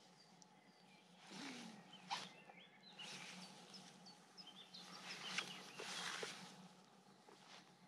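Faint woodland ambience: small birds chirping sparsely in the distance, with soft rustles and a couple of light clicks at about two and five seconds in.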